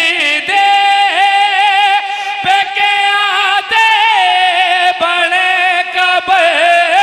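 A male voice singing a Punjabi mourning lament (bain) in long, wavering, ornamented notes, the wailing chant of a Shia majlis recitation.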